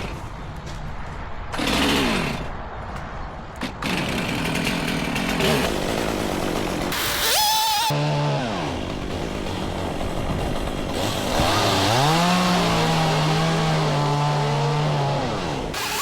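Two-stroke chainsaw revving. The throttle is blipped and let off a couple of times early, then held at high revs for a few seconds near the end before dropping back.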